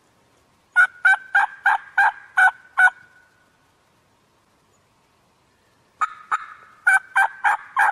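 Turkey yelping: two series of loud, raspy yelps, about seven evenly spaced notes, then after a few seconds' pause about six more, building from two softer notes.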